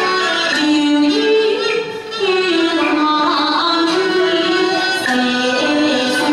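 A woman singing a Yue opera (Shaoxing opera) aria in its drawn-out, ornamented style, with instrumental accompaniment.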